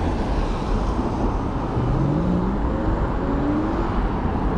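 Steady wind and road rumble while riding a bicycle through traffic. From about two to four seconds in, a car engine rises in pitch as it accelerates.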